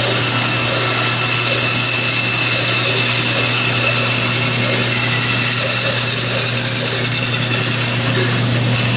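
Bandsaw running steadily with a constant motor hum while its blade cuts through a wooden blank.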